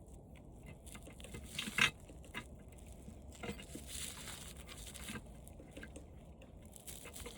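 Faint, scattered clicks and scraping of hand tools on the metal parts of an old TV being taken apart, with one sharper click about two seconds in.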